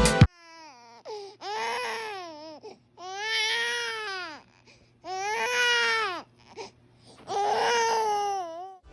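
A baby crying in four separate wails, each about a second long and rising then falling in pitch, with short breaths between them.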